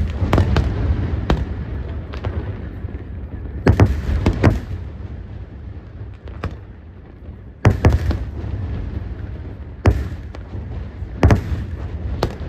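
Aerial firework shells bursting overhead: clusters of two or three sharp bangs every few seconds, with a low rumble between them.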